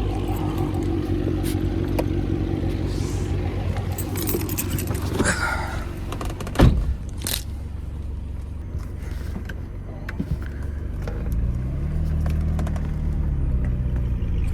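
Car engine running steadily, with a sharp clunk about halfway through and a brief rise and fall in revs near the end.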